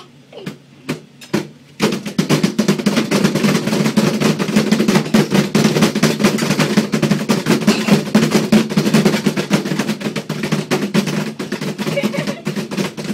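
Hands slapping and drumming on a small table: a few separate knocks, then about two seconds in a fast, continuous patter of hits.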